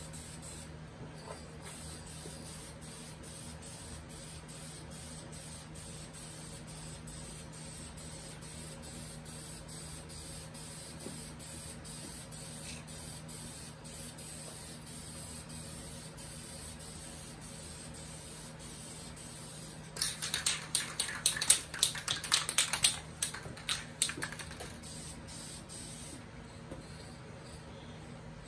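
Aerosol spray-paint can hissing in many short spurts as paint is sprayed onto the wooden cabinet rails. About two-thirds of the way through comes a few seconds of loud, rapid rattling.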